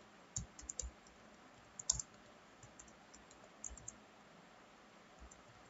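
Computer keyboard keys pressed in a few short, uneven runs of clicks with pauses between them, as short lines of HTML code are typed.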